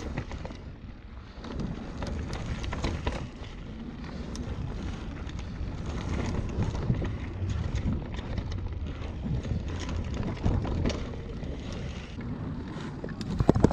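Mountain bike riding fast down a dirt trail: tyres rolling over dirt and roots, the bike rattling with many small knocks, and wind rushing over the microphone. Near the end a fast run of sharp, loud clattering knocks begins.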